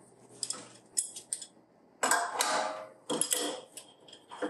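Metallic clinks and scraping of an adjustable wrench working the brass fittings at a pump's pressure-gauge port, with a few light clicks and then two louder, longer scrapes about two and three seconds in.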